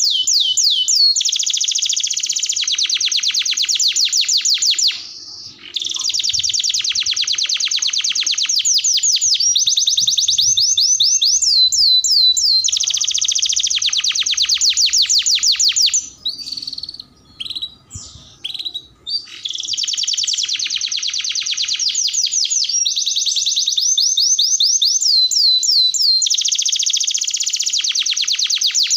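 Domestic canary singing a long song made of fast trills, each run a rapid string of repeated high notes. There is a short break about five seconds in and a longer pause with a few scattered notes around the middle, then the trilling resumes.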